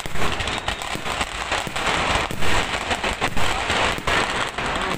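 Fireworks display: a dense, continuous run of bangs and crackles as aerial shells burst overhead and firecrackers go off on the ground.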